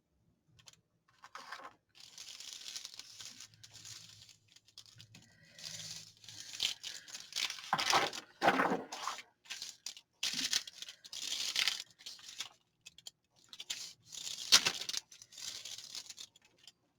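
Paper rustling and crinkling in a string of irregular short scrapes and rubs, with a few sharper crackles: a paper envelope being handled and set onto a freshly glued journal page.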